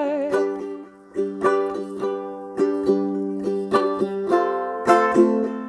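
Music: an acoustic string instrument strummed in a steady rhythm, with a brief pause about a second in.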